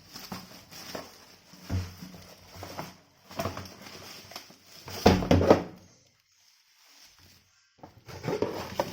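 Handling and unpacking a cardboard box: rustling and scattered knocks, with a heavier thump about two seconds in and the loudest thumps about five seconds in, then a short quiet pause before the handling starts again.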